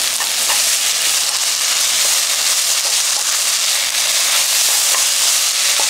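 Julienned kelp, sliced green chillies and minced garlic sizzling in hot cooking oil in a nonstick wok as they are stir-fried with a wooden spoon: a steady hiss of frying.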